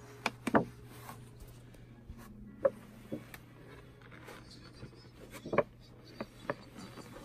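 Clear plastic clamshell of grapes clicking and crinkling as fur-padded paws handle it: a string of short, sharp clicks, loudest about half a second in and again past the middle, over a low steady hum.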